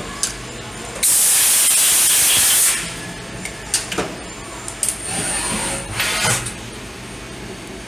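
CNC milling machine with a loud spraying hiss lasting about a second and a half, like a blast of air or coolant, followed by scattered clicks and a brief high whine.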